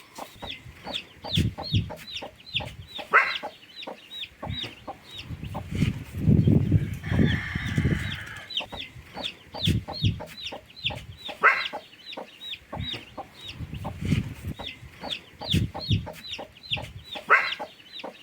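Chickens clucking, with a constant stream of short, high, falling peeps several times a second and a few louder sharp calls.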